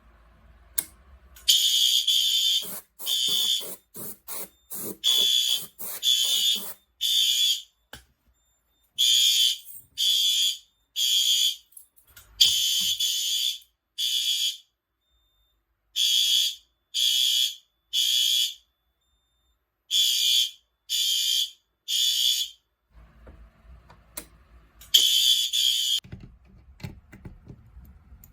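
Fire alarm horns sounding in short, high-pitched blasts, mostly in groups of three with a pause between groups: the temporal-three evacuation signal. A few longer blasts break the pattern near the start and about halfway through.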